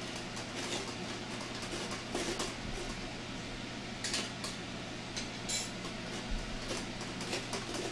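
Stainless-steel food mill (mouli) cranked by hand as cooked potatoes are pressed through it: irregular metallic clicks and scraping of the blade turning over the perforated disc, over a steady low hum.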